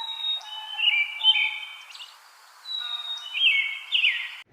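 Birdsong: two phrases of high chirping and whistled notes, each lasting about a second and a half, cutting off abruptly at the end.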